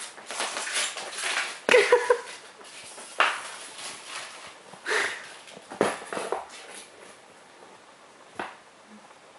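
Newspaper rustling and crinkling in irregular bursts as a pet rat drags a sheet across a vinyl floor and into a cardboard box to build a nest. The loudest crinkle comes about two seconds in, and the rustling dies down after about seven seconds.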